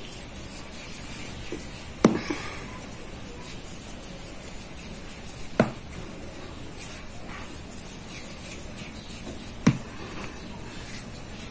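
Three sharp knocks of dough balls being pressed and set down on a floured wooden board by hand, spaced about three to four seconds apart, over a steady background hiss.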